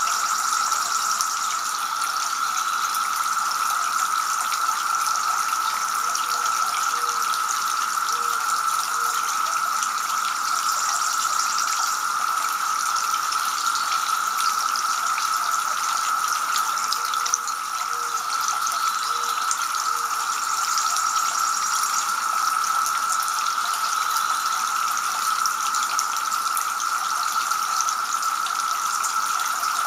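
A small tiered garden fountain, its water splashing and trickling steadily from the upper bowl into the lower basin.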